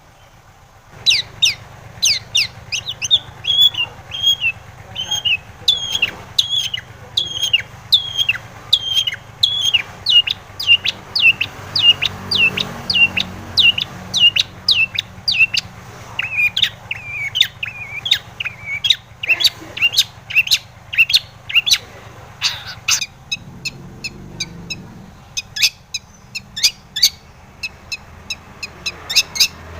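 Long-tailed shrike (cendet) singing: a long, fast series of sharp notes, each dropping steeply in pitch, about two to three a second, beginning about a second in.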